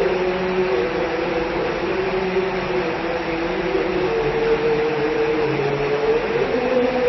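Steady rain falling, with a distant call to prayer over a mosque loudspeaker: long, wavering sung notes that glide slowly up and down.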